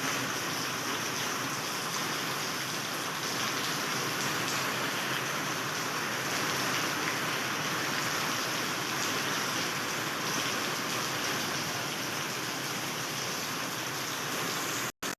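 Heavy rain pouring down steadily, a dense even hiss with no let-up; it cuts off suddenly near the end.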